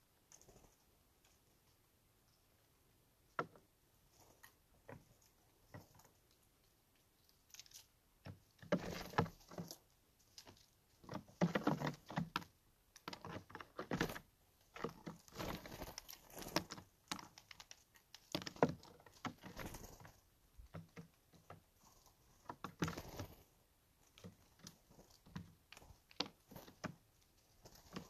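Steller's jays coming and going at a pile of in-shell peanuts: wing flutters, taps and scratches of feet and bills on the surface, and peanuts knocking together. At first only a few scattered clicks, then busy irregular bursts of fluttering and tapping from about a third of the way in, thinning near the end.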